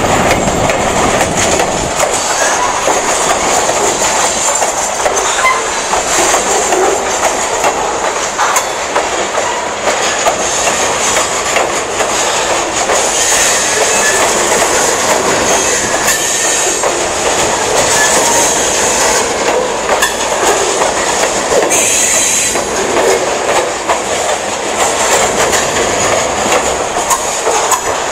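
Freight train of covered hopper cars rolling past close by: steel wheels clacking steadily over the rail joints, with a high wheel squeal that grows louder at times.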